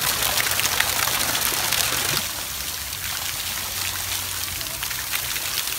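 Water spraying and pattering down from a splash-pad play structure onto the wet deck, a steady hiss of falling water that drops in level about two seconds in.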